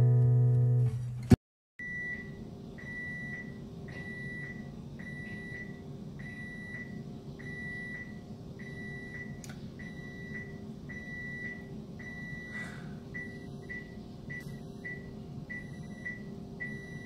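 A peritoneal dialysis machine beeping: short, high beeps repeating evenly a little under two a second over a steady low hum, starting about two seconds in after a second of guitar music that cuts off.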